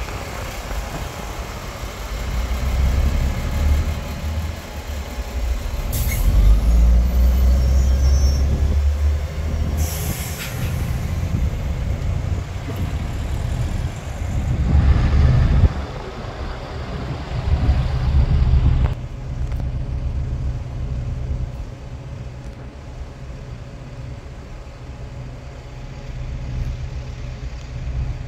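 Diesel double-deck buses running in street traffic, with a low engine rumble that rises and falls. Short sharp air-brake hisses come about six and ten seconds in, and a bus idles steadily in the later part.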